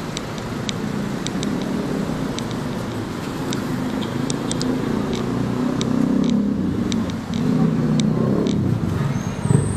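City street traffic: car engines running steadily, a little louder for a moment toward the end, with scattered light clicks over it.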